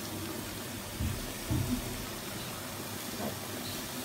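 Sliced onions and whole spices frying in oil in an aluminium pot, a steady sizzle, with a couple of soft knocks between one and two seconds in.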